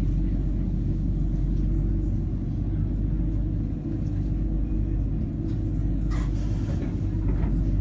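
Steady low hum and drone of a Tyne and Wear Metrocar's onboard equipment while the train stands still, heard inside the carriage.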